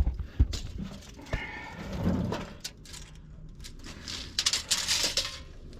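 Handling noises from work on a tyre-mounted angle-iron toe gauge: a few sharp knocks, then a quick burst of rattling clicks about four seconds in as the bar is reset after it ended up too low.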